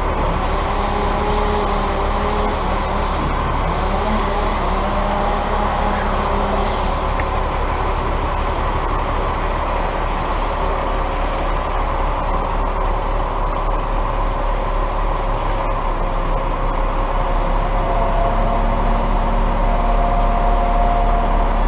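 Engine of a truck-mounted boom crane running steadily while the boom works, heard close up. Faint whining tones come and go over the rumble, and it grows a little louder near the end.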